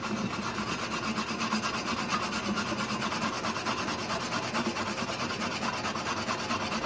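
A small hand-held steel wire brush scrubbed rapidly back and forth over a fresh MIG weld on thin galvanized steel plate: a steady rasping of several strokes a second, cleaning the weld to bring out the bead.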